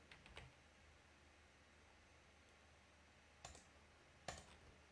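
Near silence with a few faint computer clicks from a keyboard and mouse: a couple at the start, then two more near the end, under a second apart.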